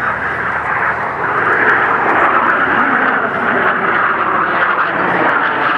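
Jet engines of three military jet aircraft flying past in formation: a steady noise that grows louder about a second in and then holds.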